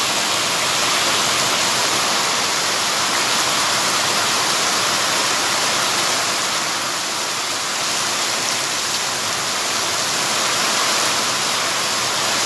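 Heavy rain pouring onto a wet paved street, a steady, even hiss.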